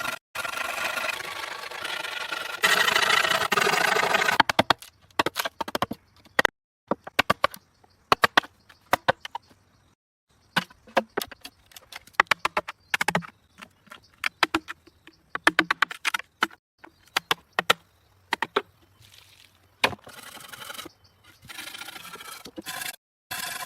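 Hand tool work on wood: rough scraping or rubbing, then a long run of sharp, irregular knocks and taps, then scraping again near the end.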